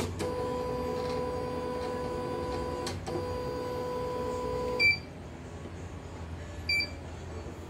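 CNY portable embroidery machine's embroidery unit motor driving the hoop carriage: a steady whine for about three seconds, a short break, then about two seconds more. Then two short beeps from its touchscreen keys, about two seconds apart.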